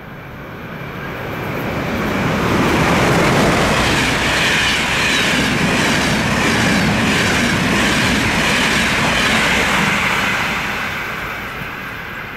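ÖBB intercity passenger train passing at speed. Its noise swells for the first few seconds, then holds as the coaches go by with a regular clicking of wheels over the rails, and fades toward the end.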